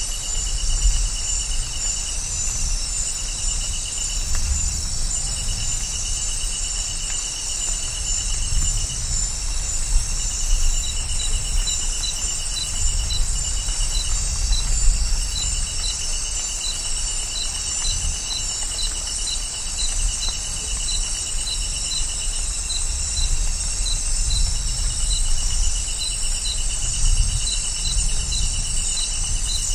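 Rainforest night ambience: insects trill in long pulsing stretches, and a repeated high chirp joins about ten seconds in, over a constant low rumble.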